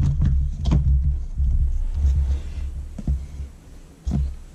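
Electric stick blender motor on a mini chopper bowl, running in short pulses: a low hum that stops and starts several times as it blends herbs, garlic and olive oil into chimichurri. A single knock comes near the end.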